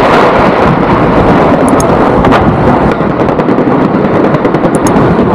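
Fireworks going off in a dense, continuous rapid crackling and popping, very loud, with sharper cracks standing out now and then.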